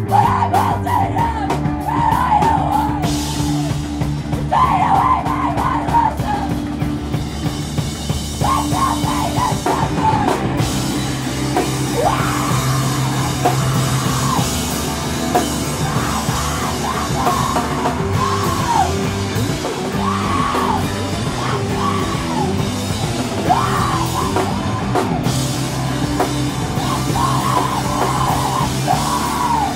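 Rock band playing live and loud, with distorted guitars, bass and drums, and a vocalist yelling in short repeated phrases over them.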